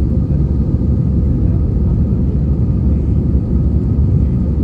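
Steady low rumble of an Airbus A320-200's engines and airflow, heard from inside the passenger cabin.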